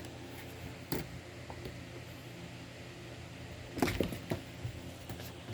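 Two small pets moving and scuffling about at play: a few short knocks and scrapes, one about a second in and a cluster near four seconds, over a steady low hum.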